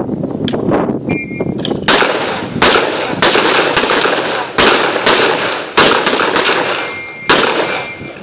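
M14 rifles firing from a line of several shooters. Single shots come at an irregular pace, about eight loud cracks from two seconds in, each trailing off in echo, with a few fainter shots earlier.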